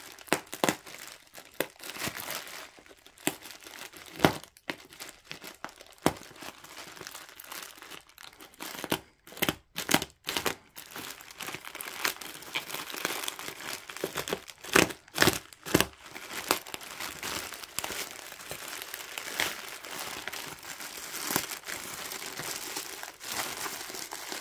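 Plastic mailing bag being slit with a craft knife and torn open by hand, its film crinkling and crackling irregularly, with bubble wrap rustling as it comes out near the end.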